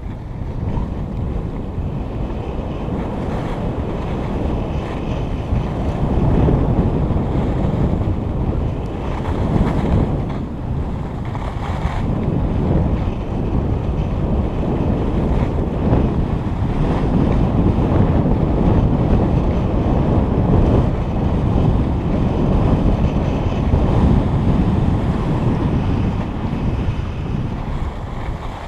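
Wind rushing over a body-worn camera's microphone while skiing downhill, mixed with skis sliding over packed snow. The rush rises and falls in loudness with the skier's speed.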